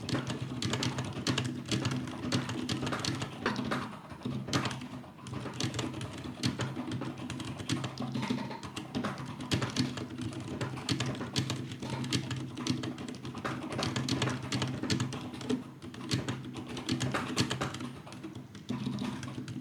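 Fast, continuous typing on a mechanical keyboard: a rapid, uneven run of key clacks, keys struck hard.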